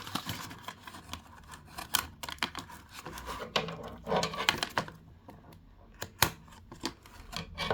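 Scattered clicks and rustles of plastic and cardboard packaging being worked to free a doll from its box, with one sharp click about six seconds in.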